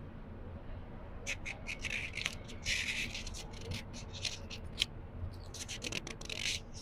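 Book pages being turned slowly: crisp paper rustles and crackles, starting about a second in, with two longer sweeps of a page.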